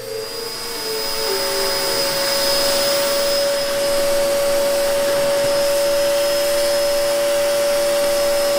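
Bagless upright vacuum cleaner starting up, swelling to full speed in about the first second, then running steadily with a hiss and a high motor whine.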